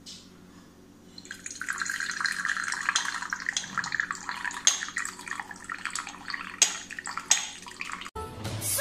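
Freshly made tea poured in a thin stream into a ceramic cup, a continuous splashing trickle that starts about a second in, over a steady low hum.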